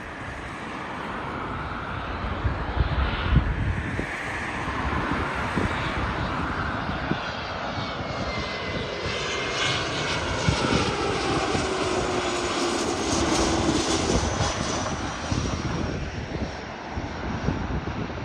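Dassault Falcon 2000EX business jet's twin Pratt & Whitney Canada PW308C turbofans passing low overhead on landing approach: the engine noise builds, whistling tones fall in pitch as the jet goes over, then it fades. Wind thumps on the microphone a few seconds in.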